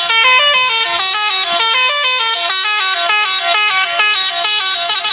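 Indonesian bus 'telolet' musical horn playing a quick tune, its notes stepping up and down several times a second.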